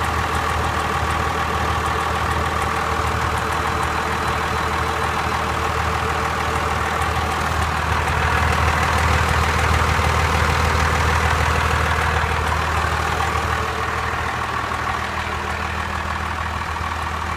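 Cummins diesel engine idling steadily, with a fine, rapid ticking that comes and goes; the owner does not know its cause. The engine gets a little louder for a few seconds in the middle.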